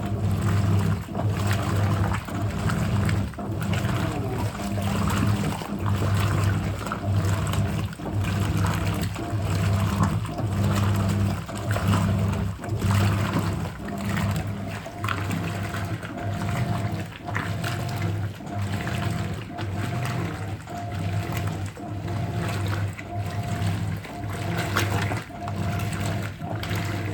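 Hoover 800RL top-loading washing machine agitating a wash load. The motor hums steadily while the fast agitation stroke repeats about once a second and churns the water.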